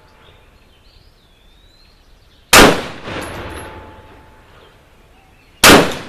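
Two shots from a 10.5-inch-barrel AR-15 pistol firing 5.56x45mm 55-grain full metal jacket, about three seconds apart, in the middle of a slow string of aimed shots. Each sharp blast is followed by a short echo.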